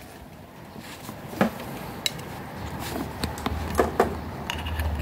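Light, scattered clicks and taps of hands handling the plastic base of an IKEA Svallis wall lamp while a power cable is pushed through its cable entry. A low steady rumble comes in about halfway through.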